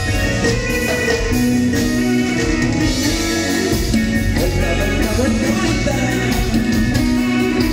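Live band music with a steady beat: electronic keyboard playing over electric guitar and a drum kit.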